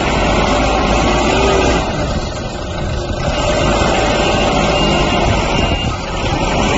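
Self-loading concrete mixer truck's diesel engine running steadily with a loud mechanical din. It eases briefly about two seconds in and again near the end.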